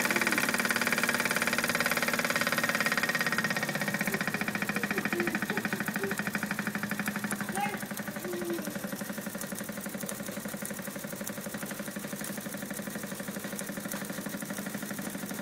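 Jensen #60 toy steam engine running at a steady, rapid, even beat, driving a belt-driven line shaft and miniature workshop tools with a steady whir that eases off a few seconds in.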